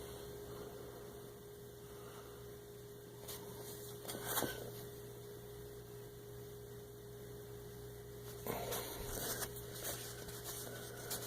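Steady electrical hum, with a few faint rustles and light knocks from sewn denim being handled and turned over about three, four and eight to ten seconds in.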